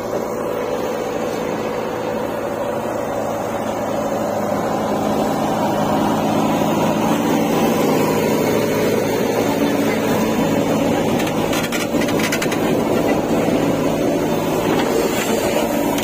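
Diesel engines of a JCB 3DX backhoe loader and a John Deere tractor running close by, a steady engine note that grows louder a few seconds in. Near the end a few clicks and scrapes come in as the backhoe bucket digs into the soil.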